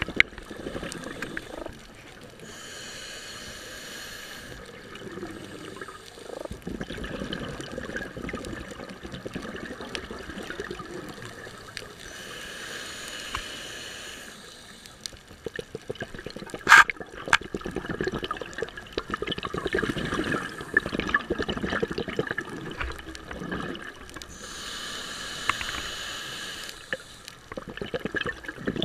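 Underwater sound of a scuba diver breathing through a regulator: three bursts of exhaled bubbles rush past, roughly every ten to twelve seconds, with gurgling in between. A single sharp click comes a little over halfway through.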